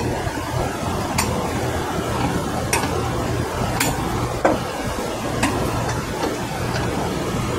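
Light metallic clicks and clinks of a hand clamp tool being worked at a scooter's tubeless front tyre, about six scattered through, over a steady low rumbling background noise.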